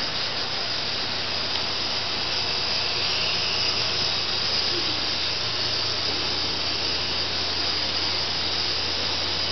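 Steady, unbroken hiss of smoke venting from a model volcano during its simulated eruption, with a low hum beneath it.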